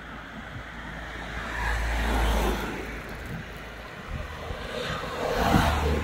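Cars passing on a road: one swells and fades about two seconds in, and another approaches near the end.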